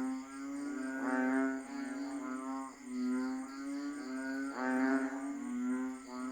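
A chorus of banded bullfrogs (Asian painted frogs, Kaloula pulchra) calling: several low, droning, drawn-out calls overlapping one another, with a new call starting every second or two.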